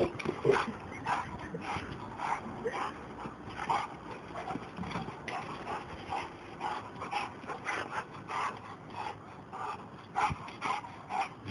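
Dogs giving short, quick repeated yelps, about two a second.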